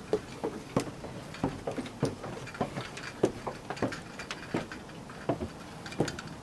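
Footsteps walking on the trail: an irregular run of light knocks and crunches, about two or three a second.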